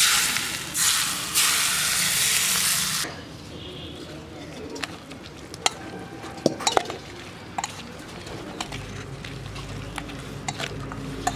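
Hot oil poured from a pan onto sliced onions, green chillies and spices in a steel bowl, sizzling loudly for about three seconds. Then a metal spatula stirs the mixture and scrapes against the steel bowl with light clinks.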